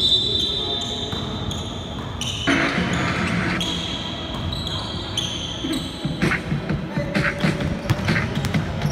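Basketball game on a hardwood court: sneakers squeaking, and from about six seconds in a ball being dribbled in a run of sharp bounces, with players calling out.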